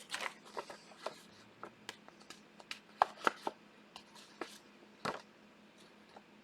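Trading cards being handled on a table: an irregular scatter of light clicks and taps as cards are flipped and set down, the sharpest about three and five seconds in.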